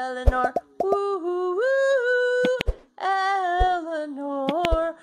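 A voice singing a slow melody in long held notes that step up and down in pitch, with a few short clicks between phrases.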